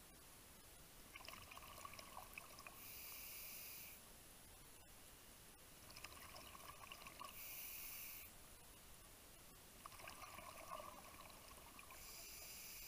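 A scuba diver breathing through a regulator underwater, faint. Three breath cycles come about every four seconds, each a crackly stretch of exhaled bubbles followed by a steady hiss of inhalation.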